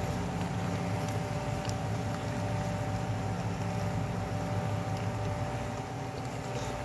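A steady machine hum with two faint steady whining tones above it, with a few faint light clicks as a wooden spatula stirs penne in the pot.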